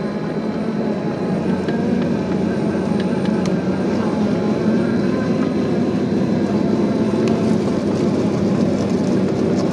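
Traxxas TRX-4 scale RC crawler's electric motor and gearbox whining steadily as it crawls slowly over pine needles and rocks, with a few light clicks along the way.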